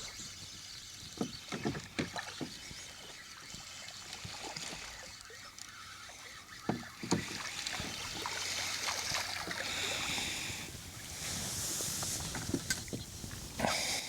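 Scattered knocks and clatter on a kayak as a caught fish and gear are handled, with a few seconds of hissy splashing or rustling in the second half.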